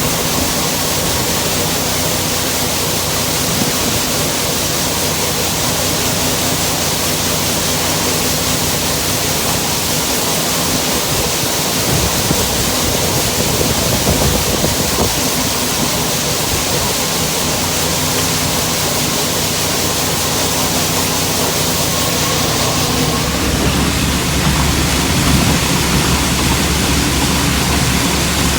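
Combine harvester running through soybeans: a steady engine hum under a loud continuous rushing of the threshing and cleaning machinery. About 23 seconds in, the low engine sound grows louder.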